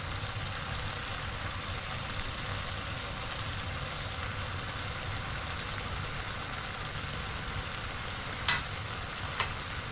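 Short ribs, cauliflower and chilies sizzling steadily in a pot now that the cooking water has dried up, over a low steady hum. Two short clicks near the end.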